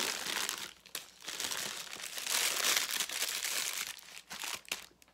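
Paper gift wrapping crinkling and rustling as it is handled and unwrapped, in uneven spurts of crackle, loudest about two and a half seconds in and stopping shortly before the end.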